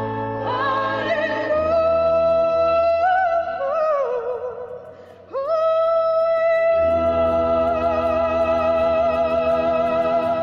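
Background music: a high melody with vibrato in long held notes over sustained low chords. It dips briefly about five seconds in, returns on a long held note, and fades out at the end.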